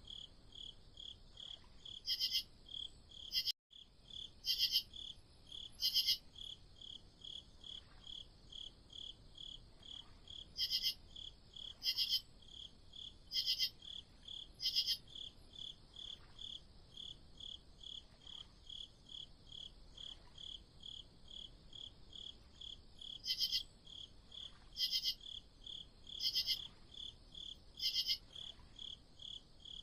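Crickets chirping at night: a steady, even chirp at about two to three a second, with a second, louder cricket joining in runs of about four chirps three times. The sound drops out for a moment about three and a half seconds in.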